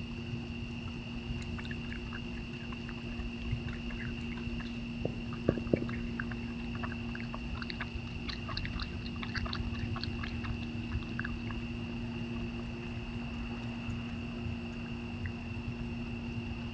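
A steady high insect drone over a low hum, with scattered small clicks and crunches: a few sharp knocks about five and a half seconds in, then a quick run of clicks a little later.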